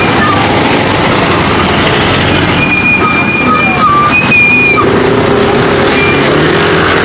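Steady wind and road noise on a Yamaha scooter rider's camera microphone while riding in slow city traffic. A high, thin squeal comes in for about two seconds near the middle.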